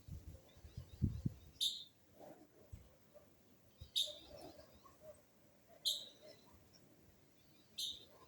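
A bird repeats a short, sharp, high call four times, about every two seconds, over fainter bird twittering. Low thumps or rumbles come in the first second or so, the loudest about a second in.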